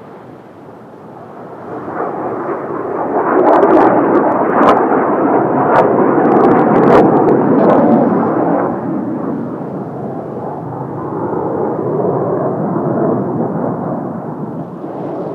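Kawasaki T-4 jet trainer flying past: jet engine noise swells for a couple of seconds, peaks for about five seconds with a few sharp crackles, then eases off to a lower, steady level.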